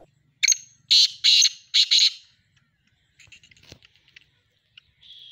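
Male black francolin calling: a loud series of about five harsh, grating notes in quick succession, followed by fainter scattered notes and a short high note near the end.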